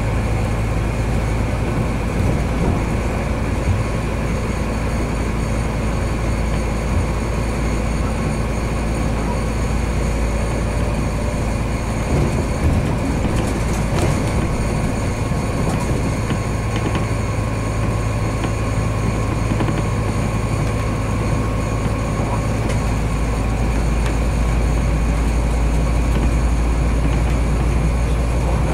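Diesel railcar running steadily along the line, heard from the driver's cab: a constant engine hum over rolling wheel-and-rail noise, with a few sharp knocks about halfway through.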